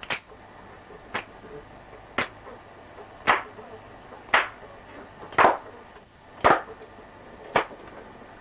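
Sharp percussive hits keeping a slow, even beat of about one a second, eight in all. Some are louder than others, the loudest near the middle.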